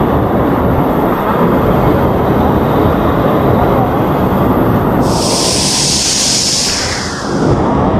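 Waterfall roaring close by: a loud, steady rush of water. A high hiss joins for about two seconds past the middle.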